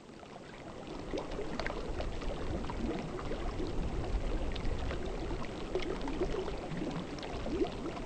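Water bubbling, a dense stream of small bubbles gurgling and popping, fading in over about the first second and then holding steady.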